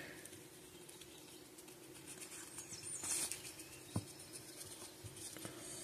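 Faint rustling and sliding of baseball cards handled and fanned through by hand, with one soft click about four seconds in, over a faint steady hum.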